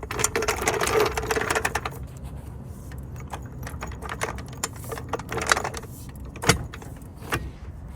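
Car jack being worked to lift the car: a dense metallic clicking rattle for about two seconds, then scattered clicks with two sharper knocks near the end.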